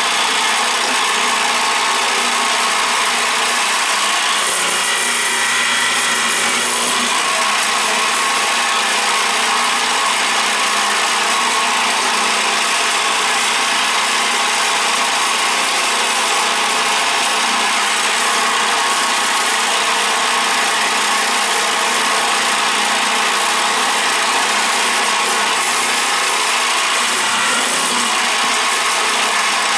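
Delta 13-spindle line boring machine running steadily, its motor driving a row of spindles as the drill bits bore shelf-pin holes into a wood panel.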